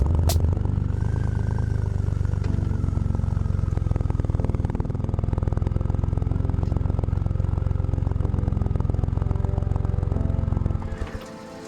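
Triumph three-cylinder motorcycle engine running steadily on the move, with a dense, even beat of firing pulses; it cuts off abruptly near the end.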